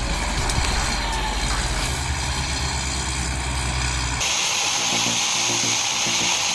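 A heavy machine's diesel engine running steadily. About four seconds in, it cuts abruptly to the steady high whine and hiss of a motor-driven log saw.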